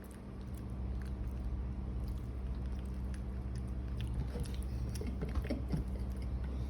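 Baby monkey chewing food: scattered small smacking clicks over a steady low hum.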